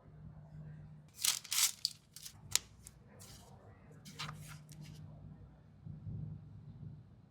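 Smartphone packaging being torn and handled: a run of quick ripping and rustling strokes about a second in, then a few more a couple of seconds later.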